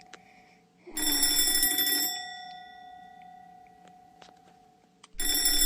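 Alarm clock bell ringing in two bursts of about a second each, one about a second in and one near the end, with the tone lingering and fading between them. It is the alarm set off to wake a sleeper.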